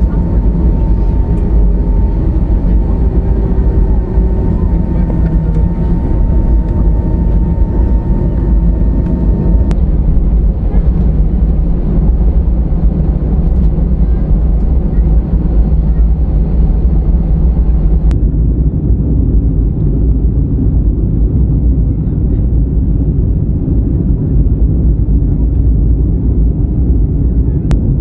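Jet airliner running steadily with a loud, deep rumble of engine and rushing air. Faint whining tones over it stop about ten seconds in, and the higher hiss drops away about eighteen seconds in.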